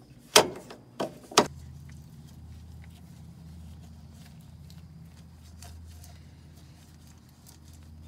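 Three sharp knocks of washer parts being handled, about a second and a half apart at most, then a steady low hum with faint scattered clicks and rubbing as a gloved hand works at the splined drive shaft.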